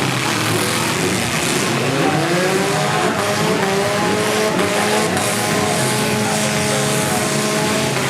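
Several four-cylinder demolition derby cars' engines revving together, their pitches rising and falling over one another.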